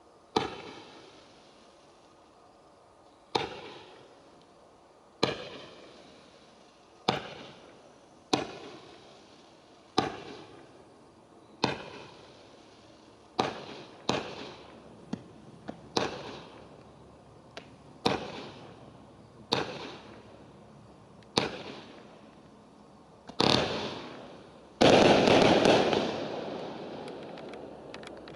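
Kimbolton Fireworks 'Pink Gender Reveal' firework cake firing its shots one by one, a sharp bang with a fading tail every couple of seconds. Near the end the finale fires many shots together in a loud, dense burst lasting about three seconds, then dies away.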